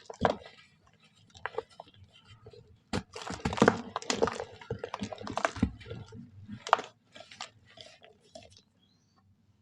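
Soft brown sand crunching and crumbling in a run of crisp crackles, thickest in the middle and thinning out near the end.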